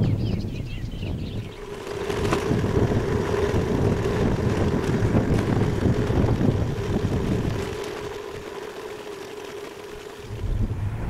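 Wind buffeting the microphone of a moving camera, over steady road and engine hum from the vehicle. The low rumble eases off for a couple of seconds late on, then comes back.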